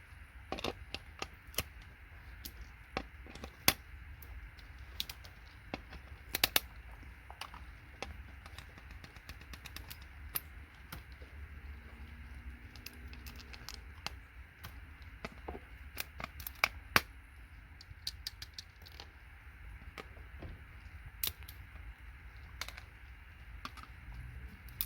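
Irregular sharp clicks and taps of hand tools working components off scrap circuit boards, with a few louder knocks among them, over a low steady hum.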